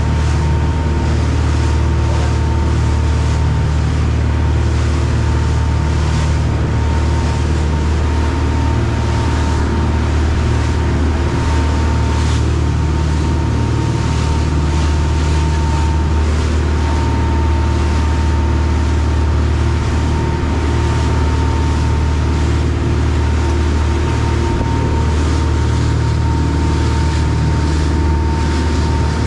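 A dive boat's engine running steadily at cruising speed as a constant low drone with a faint steady whine, under the rush of the churning wake.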